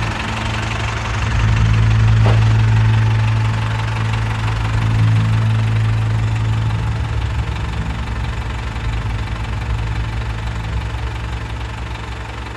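New Holland tractor's diesel engine idling steadily, the sound slowly fading over the second half.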